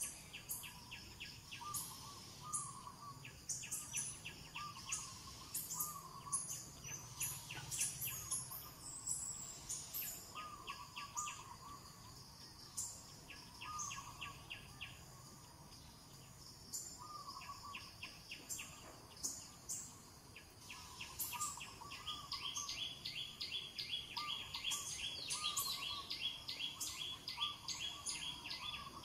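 Birds calling with insects trilling: a short warbling phrase repeats every second or two, over high chirps and fast ticking trills that grow denser near the end.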